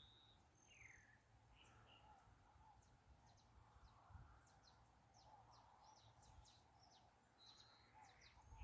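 Faint birdsong from several wild birds: short high chirps and whistles, a few held notes and one falling whistle about a second in, with a quick run of chirps in the middle, over a faint low background rumble.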